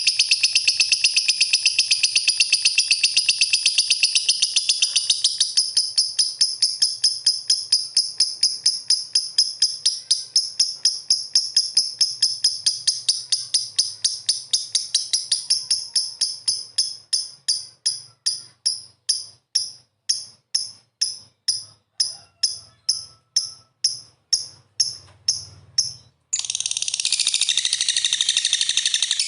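Lovebird chirping: a fast, high-pitched stream of chirps that gradually spaces out into separate even chirps, about three a second, then breaks off into dense chattering near the end.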